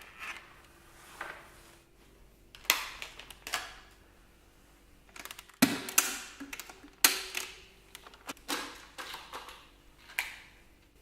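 Clicks, knocks and short scrapes of hard plastic as the housing and battery pack of a Dyson V6 cordless vacuum are handled during a battery change. The handling comes in irregular clusters, loudest about six and seven seconds in, over a faint steady hum.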